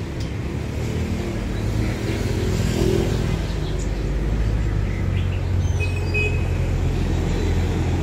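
Low, steady rumble of road traffic, with a few faint chirps from caged songbirds over it.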